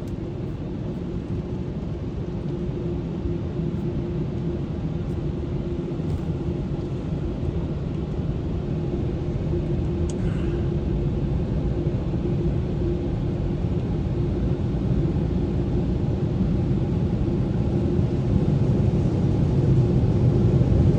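Steady low rumble heard from inside a car as it drives out of an automatic car wash bay, slowly growing louder toward the end.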